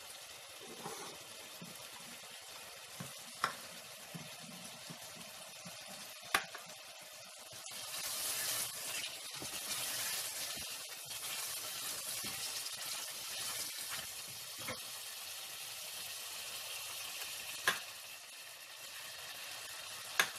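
Potatoes and onion-tomato masala sizzling as they are sautéed in a stainless steel pot, with a wooden spoon stirring and knocking sharply against the pot a few times. The sizzling grows louder for a few seconds about eight seconds in.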